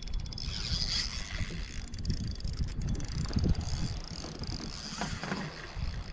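Wind rumbling on the microphone, with scattered knocks and handling noise while a hooked bass is fought up to a small boat.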